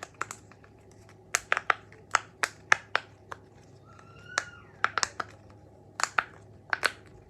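Silicone pop-it fidget toy being pressed bubble by bubble from the other side: a string of sharp little pops, irregular, a few to a second.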